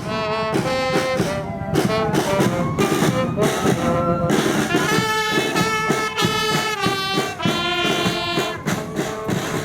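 Brass band music: several horns hold and slide between notes over a steady drumbeat.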